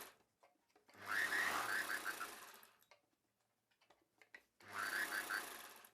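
Sewing machine running in two bursts of about two seconds each, trailing off as it stops. It is stitching a blouse sleeve piece and its lining together.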